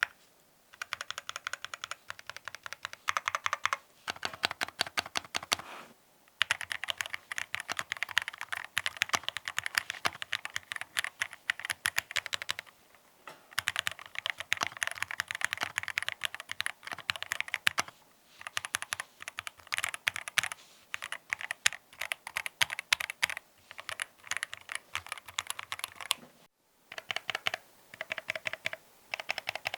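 Mechanical keyboard with factory-lubricated Akko x TTC Demon switches being typed on in quick runs of keystrokes, with short pauses between the runs.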